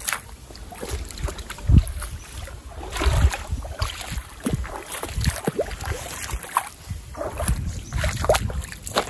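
Footsteps splashing and sloshing through shallow water in sneakers, about one step a second.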